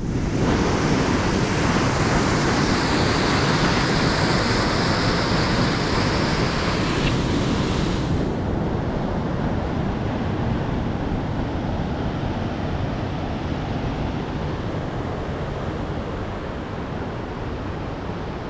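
Rushing water of a mountain stream cascading over rocks, a steady loud rush. The upper hiss drops away suddenly about eight seconds in, and the sound then grows gradually quieter.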